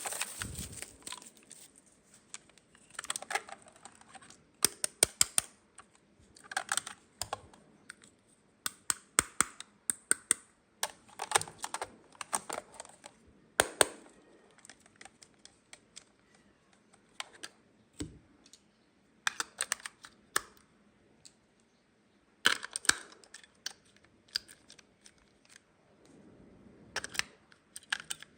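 Small hard plastic toy pieces clicking and tapping in quick bunches as they are handled and set down, with short pauses between bunches.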